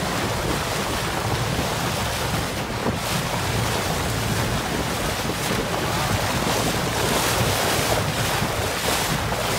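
Wind buffeting the microphone over choppy sea water from a small boat, a steady rushing noise with the wash of waves.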